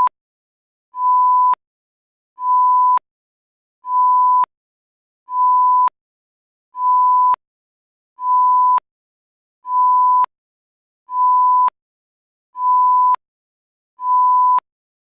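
Electronic beep sound effect: a single steady mid-pitched tone about half a second long, repeated evenly about every second and a half, roughly ten times. Each beep cuts off abruptly with a small click.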